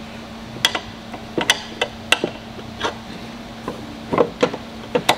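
Steel tire spoon clicking and knocking against a metal scooter wheel rim while the last tire bead is pried on by hand: a string of irregular sharp clicks, closer together and louder about four seconds in.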